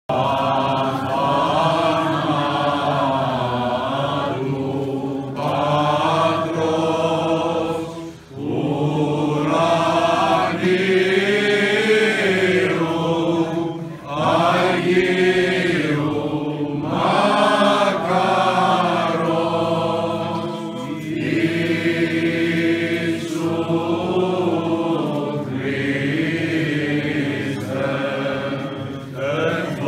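A group of men's voices chanting a Greek Orthodox Byzantine hymn, the melody moving over a steady low held note, with two brief breaks about a third and halfway through.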